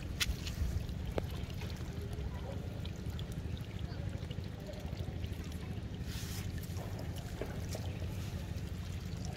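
Shallow rainwater running over flooded grass, a steady trickling rush under a low rumble, with scattered small clicks and splashes and a brief brighter hiss about six seconds in.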